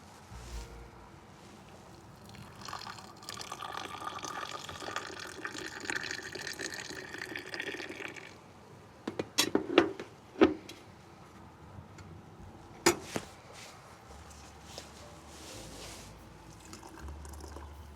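Liquid poured in a steady stream for about five seconds, then a few sharp clinks and knocks.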